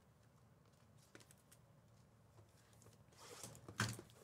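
Quiet handling of trading cards and packs: a few faint light clicks about a second in, then a short rustle of wrapper being handled near the end.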